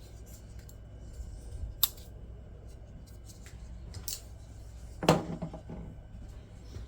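Folding pocket knives being handled, giving a few sharp metallic clicks and light taps. The loudest click comes about five seconds in.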